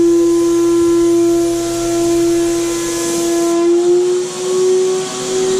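Graco HVLP turbine sprayer running with a steady high whine, over the hiss of air and primer from the spray gun. About two-thirds of the way through, the hiss eases and the whine rises slightly in pitch.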